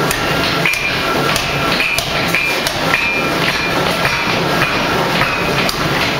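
1-ton forging hammer striking a red-hot steel ring on a mandrel, about two blows a second, each blow leaving a short metallic ring. A steady low hum from the machine runs underneath.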